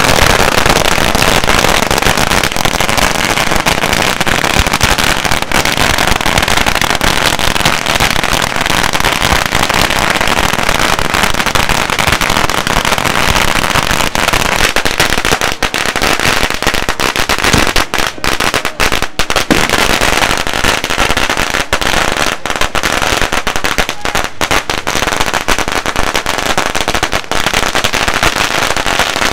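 Strings of firecrackers going off in a dense, nearly unbroken rattle of loud bangs, thinning briefly for a moment about two-thirds of the way through.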